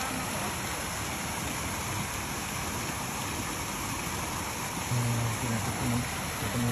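Steady rush of water from an artificial waterfall spilling into a pond. About five seconds in, a low pitched sound joins it, breaking off and coming back several times.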